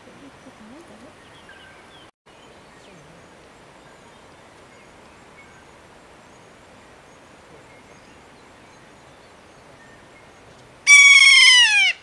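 Kea, the alpine parrot, giving one loud call near the end that slides down in pitch over about a second; before it only faint background noise.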